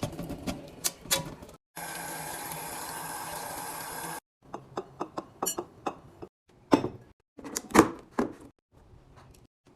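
Containers being handled while restocking a fridge, with sharp clicks and knocks. From about two seconds in to about four seconds, a steady stretch of running or pouring liquid starts and stops abruptly.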